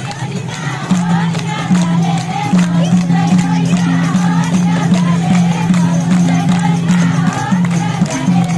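A group of women singing a Nepali Teej folk song with hand clapping and a drum beat that comes in about a second in, over crowd noise.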